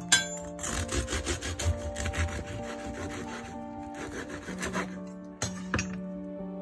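Serrated bread knife sawing back and forth through a crusty loaf of gluten-free bread on a wooden cutting board. A run of rasping strokes lasts about three seconds, then comes a shorter run, with a couple of sharp knocks near the end.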